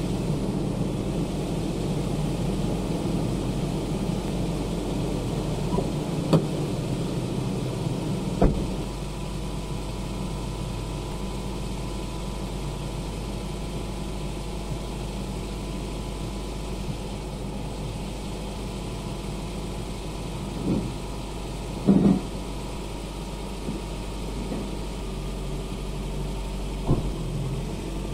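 Pickup truck engine idling steadily, with a few sharp knocks and short thuds over it.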